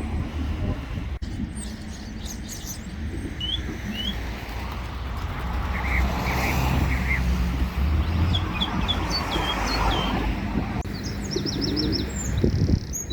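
Small birds chirping in short high notes, with a quick run of chirps near the end, over a steady low rumble.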